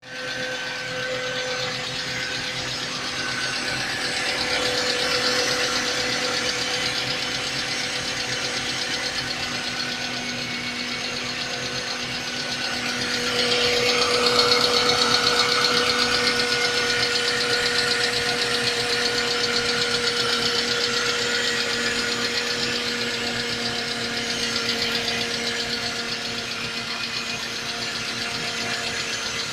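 Mercedes-Benz W211 E200 Kompressor's supercharged four-cylinder engine idling just after a cold start, with a rapid knocking from the engine. It gets louder for a few seconds about halfway through.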